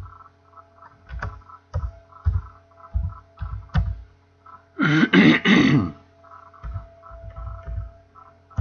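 Keystrokes on a computer keyboard, heard as short low thumps with light clicks spaced irregularly, over a steady electrical hum. About five seconds in, a short non-word vocal sound, like a throat clearing, lasts about a second and is the loudest thing.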